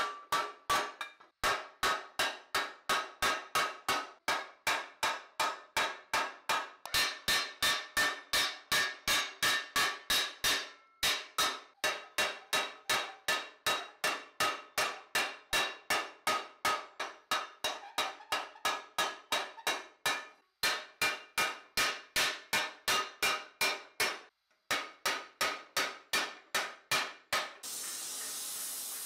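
Hammer striking a steel punch against a red-hot spot on a steel helmet face mask to shape the relief: a steady run of ringing metallic blows, about three a second, with a few short pauses. Near the end the hammering stops and a steady hiss begins.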